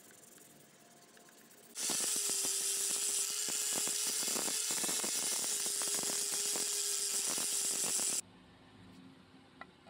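Angle grinder with a red abrasive polishing disc working across a knife blade: a steady motor whine under a harsh, scraping hiss of the disc on the metal. It starts abruptly about two seconds in and cuts off about a second and a half before the end.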